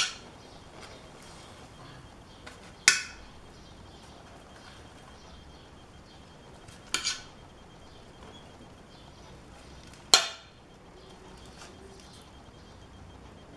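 Metal tongs clinking sharply about five times, a few seconds apart with two close together in the middle, as charcoal-roasted tomatoes, onions and garlic are picked off the coals of a clay brazier. A low steady hiss lies under the clinks.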